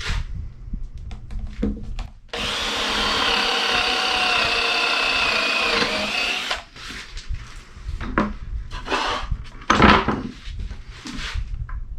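Power drill boring a hole through a wooden board. The motor whines steadily for about four seconds and its pitch sags slightly under load near the end, with knocks and clatter of wood and tool handling around it.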